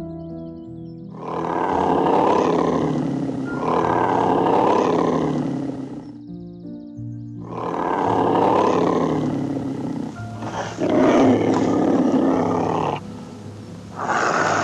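A large wild animal roaring five times, each roar about two seconds long, over soft background piano music.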